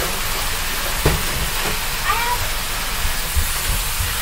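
Bath tap running, water pouring into a filling bathtub as a steady hiss. A knock about a second in, and a short rising-and-falling cat-like call about two seconds in.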